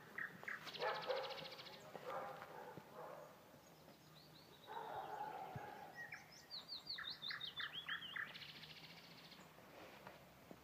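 Songbirds singing: faint repeated chirps and down-slurred notes, with a fast buzzy trill about a second in and another near the end.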